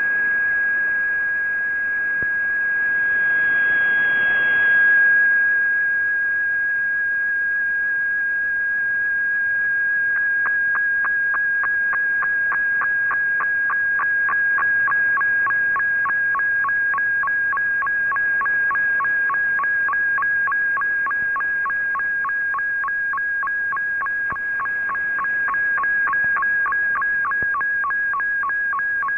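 Shortwave radio receiving an MFSK digital picture transmission: a steady whistling tone, then from about ten seconds in the tone jumps back and forth between two pitches about three times a second, over a hiss of band noise. The pitch follows the brightness of the image being sent line by line.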